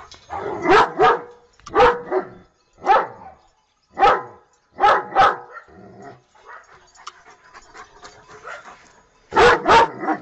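German Shepherd barking in short, loud barks, single and in pairs, about one a second for the first five seconds. After a pause, two quick barks come near the end.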